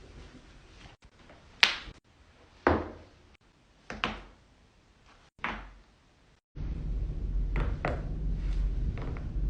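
Joints cracking, with four sharp single pops about a second apart. After an abrupt change to a steady low hum about two-thirds of the way through, several fainter pops follow.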